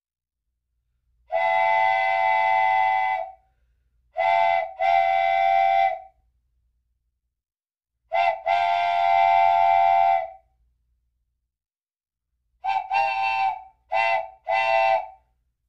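Steam locomotive whistle blowing a series of blasts that sound several tones at once: one long blast, then two shorter ones, then a quick toot running into another long blast, and four short toots near the end, with silence between.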